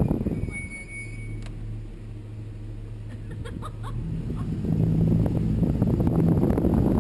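Wind buffeting the microphone in a loud low rumble that dies down about half a second in and builds back up between four and five seconds in. During the lull a low steady hum can be heard.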